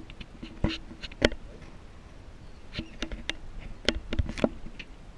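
Scattered sharp knocks and taps, with a few short low buzzes, as a caught speckled trout is handled and let go over the side of a small boat. The sharpest knock comes about a second in, with a cluster near the end.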